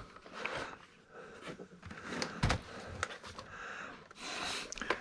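Handling noise as old laptops are moved about: rustling and a few light knocks of hard plastic, with one sharper knock about two and a half seconds in.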